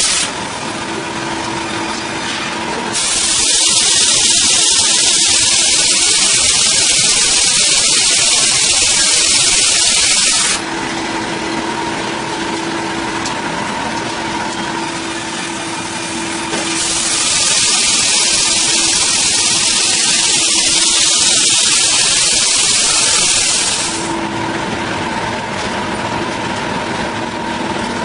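Wood-cutting machinery running with a steady hum, broken twice by long spells of loud hissing, about seven seconds each, that start and stop abruptly.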